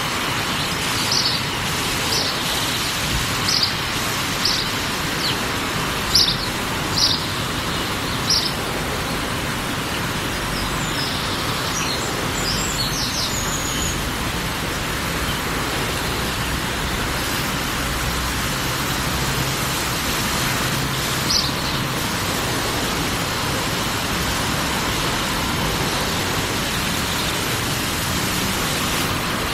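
Steady outdoor background noise, an even hiss with a low rumble. Over it a small bird gives short high chirps about once a second for the first eight seconds, then a few higher chirps shortly after and one more later on.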